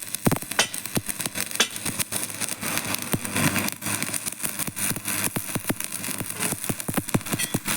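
Electric arc welding: the arc crackling and sizzling, a dense run of irregular pops over a steady hiss.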